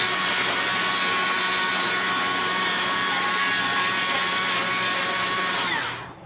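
Handheld electric power carving tool running at full speed with a steady high whine, then spinning down and cutting off near the end.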